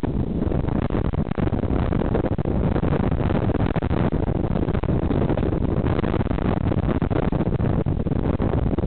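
Steady low rumbling noise from wind buffeting a small bicycle-mounted camera's microphone, mixed with road traffic at a junction.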